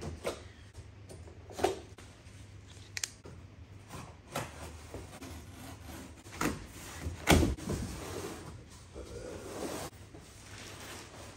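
Unpacking a large cardboard TV carton: scissors snipping, then cardboard scraping, knocking and rustling as the carton is handled. A scattering of sharp clicks and knocks, with the loudest thump a little past the middle.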